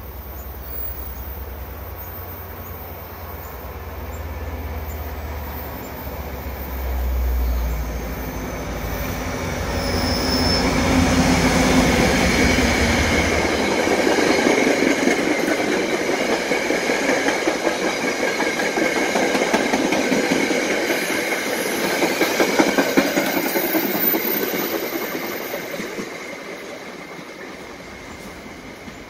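Exo commuter train of bi-level passenger coaches passing close by: a low rumble as the front end approaches, giving way about halfway through to the coaches' wheels clattering over the rail joints with a steady high ring, then fading away near the end.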